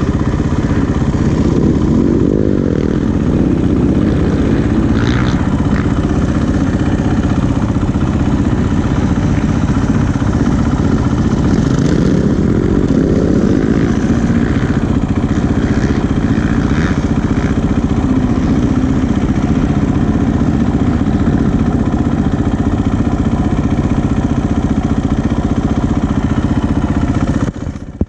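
Loud, steady low rumble of a vehicle on the move, picked up by a GoPro's own microphone: the kind of recording presented as a GoPro sound issue. It cuts off suddenly near the end.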